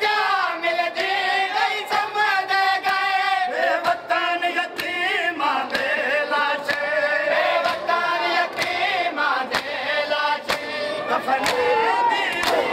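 A crowd of Shia mourners chanting a lament together, with regular slaps of chest-beating (matam) under the voices.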